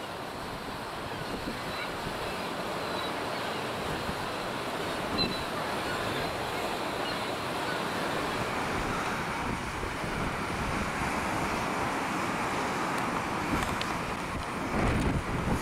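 Wind and rough sea: a steady rush of wind over breaking waves, with gusts buffeting the microphone near the end.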